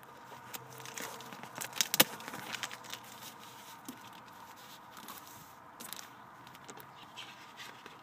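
Rustling, crinkling and light knocks of hands rummaging through a cardboard shipping box, with a few sharper clicks about two seconds in.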